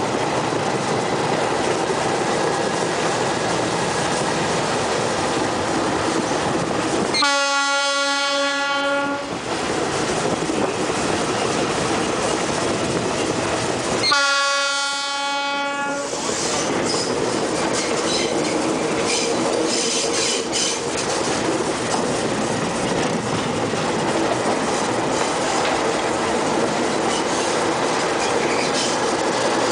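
A diesel locomotive hauling a passenger train sounds its horn twice, each a single steady blast of about two seconds, roughly seven seconds apart. Under the blasts the train runs at low speed, with wheels clattering over the rail joints.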